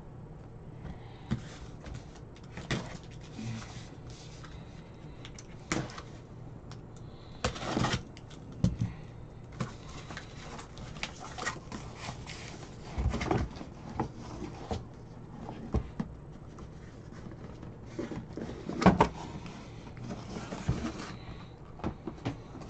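Irregular knocks, taps and rustles of a cardboard trading-card case and other items being handled and moved on a table, the sharpest knock about nineteen seconds in, over a faint steady low hum.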